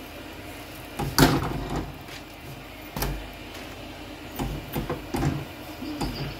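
Kitchen clatter of cookware being handled on a gas stove: a few knocks and clanks, the loudest about a second in and another at three seconds.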